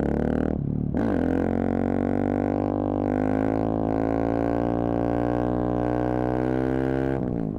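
Channel intro sound: a steady, buzzy drone with many overtones that swells in about a second in and holds for some six seconds before cutting off near the end.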